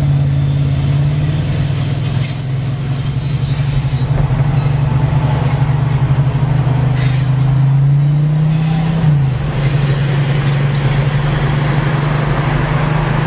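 Car's engine hum and road noise heard from inside the cabin while driving, a steady low note that climbs slowly and then drops suddenly about nine seconds in.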